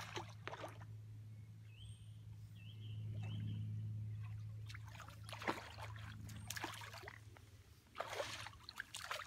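Water splashing and sloshing at the pond margin as a hooked tench thrashes at the surface beside a landing net, with a few sharp splashes in the second half, over a low steady hum.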